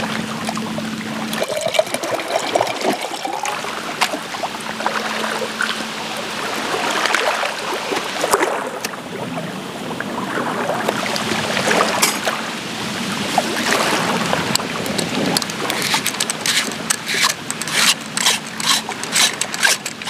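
Small waves lapping on a pebbly lakeshore, with the clinks and scrapes of camp gear being handled; a quick run of sharp clicks near the end.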